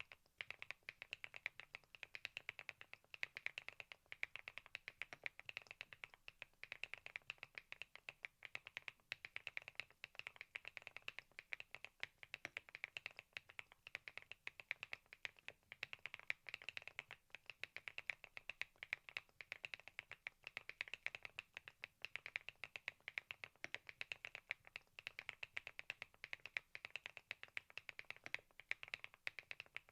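Continuous typing on a Thinkway TAUCHE.S 501 full-aluminium 75% mechanical keyboard: a fast, steady stream of key clacks, many a second.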